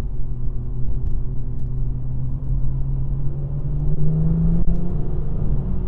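BMW M2's turbocharged straight-six engine running as the car drives, a steady drone that rises a little in pitch about four seconds in and then settles.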